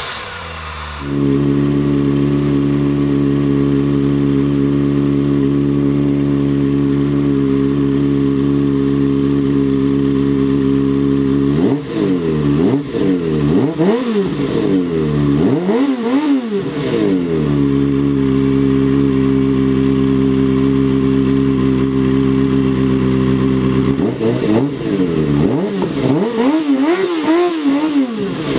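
Kawasaki Ninja ZX-4RR's 399 cc inline-four motorcycle engine idling steadily, with a few sharp throttle blips rising and falling in pitch about halfway through and again near the end.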